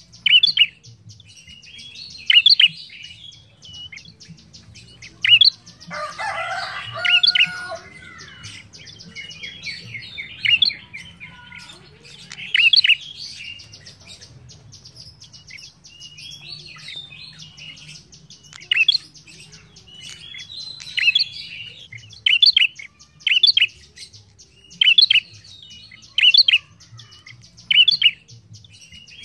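Red-headed prenjak, a tailorbird, calling in loud, sharp, short notes repeated every second or two. About six seconds in comes a harsher, lower burst of sound.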